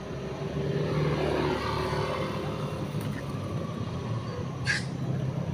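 A motor vehicle's engine running steadily, growing louder about a second in, with a brief high hiss near the end.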